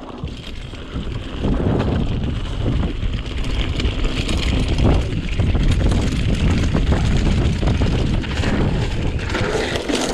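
Mountain bike, a Btwin Rockrider ST 540S, riding a forest trail: wind buffets the helmet- or bike-mounted camera microphone while the bike rattles and knocks over bumps. It gets louder about a second and a half in.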